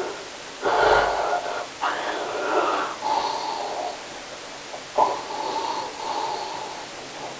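Snoring: a run of about four drawn-out snore breaths, each around a second long, with short pauses between them.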